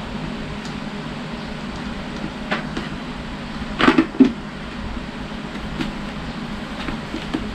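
A few sharp plastic clicks and knocks from a GoPro chin mount being fitted onto a full-face helmet, the loudest two close together about four seconds in, over a steady room hum.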